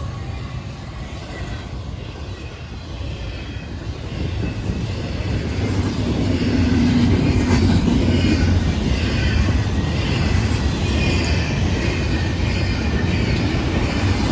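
Freight train's double-stack intermodal cars rolling past on steel rail: a steady low rumble of wheels on track with high-pitched wheel squeal. It grows louder about midway and stays loud.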